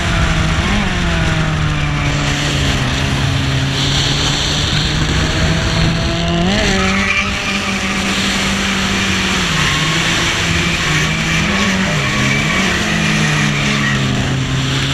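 Drift car engine revving up and down with the throttle, with a sharp blip about halfway and brief dips later, while the tyres squeal and skid in a sustained slide.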